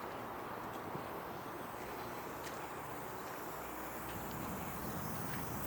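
Concrete pump running with a steady mechanical noise, with a few faint ticks.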